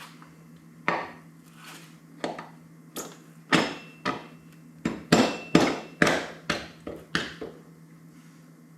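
Hammer blows on metal, about a dozen sharp taps at an uneven pace, closest together and loudest midway, driving a replacement wheel into place on an Apache 360LT track system.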